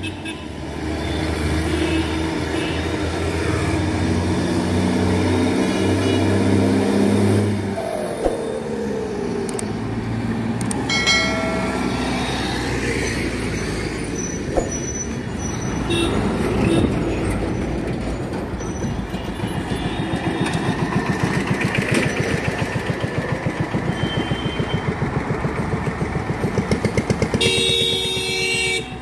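Heavy diesel trucks passing on a highway. A low engine note runs strong for the first several seconds, then drops in pitch as one goes by. A horn sounds briefly about eleven seconds in and again near the end, over a pulsing engine beat from another passing vehicle.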